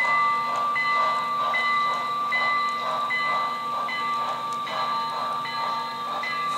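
Model train cars rolling past on the track, with a steady high whine and a squeal that comes and goes about every three quarters of a second.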